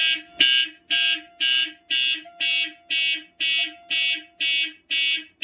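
Simplex fire alarm horns sounding in loud, even pulses about two a second, the system in alarm after a pull station has been activated.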